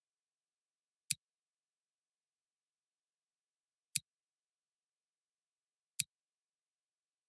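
Three sharp computer-mouse clicks: one about a second in, one near the middle and one near the end, with dead silence between.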